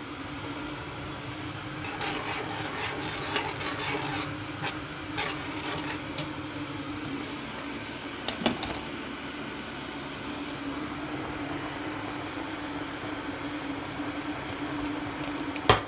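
Steady kitchen hum with one constant low tone, under scattered light clicks and knocks of plates and utensils being handled; a louder knock comes about eight seconds in and a couple more just before the end.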